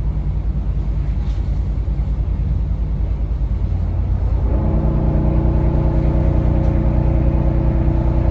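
A yacht's engine running with a steady, low throb. About halfway through, a steady pitched tone joins it and holds unbroken for about four seconds.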